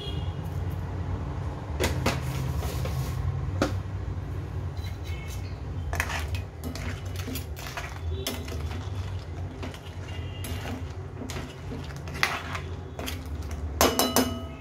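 Metal spoon stirring thick crab curry in a stainless steel wok, scraping and clicking against the pan again and again, with a few sharper ringing clinks of metal on metal near the end. A steady low hum runs underneath.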